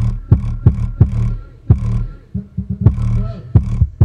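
Bass-heavy music played loud through an Altec Lansing Octane 7 subwoofer: deep, sustained bass with sharp percussive beat hits at an uneven rhythm, distorted by the camera microphone.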